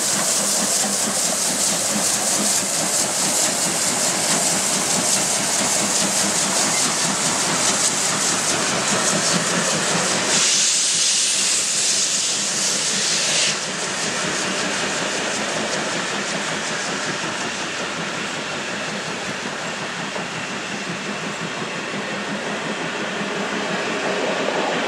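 Class 01 steam locomotive 01 0509-8 passing close with a steady hiss of steam. About ten seconds in the sound changes abruptly to a louder, sharper hiss for about three seconds, then settles into the steady rolling of passenger coaches going by on the rails.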